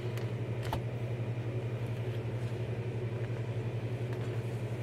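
A steady low hum, with a faint click about three-quarters of a second in as the bag is handled.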